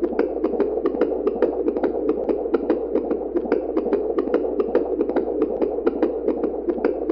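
Fetal heartbeat heard through a Doppler monitor: a steady whooshing pulse with quick clicks, about five a second.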